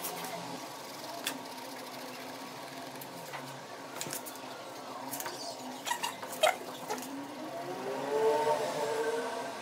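Colored pencil and drawing paper being worked by hand: a few small taps and scrapes as the sheet is handled, then pencil strokes on the paper that grow louder near the end, over a faint steady hum.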